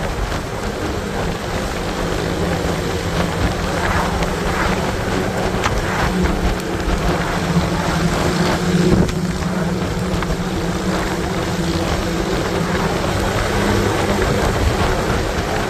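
Wind rushing and buffeting over the microphone of a moving motorcycle, over the bike's engine running with a steady drone at a constant cruising speed.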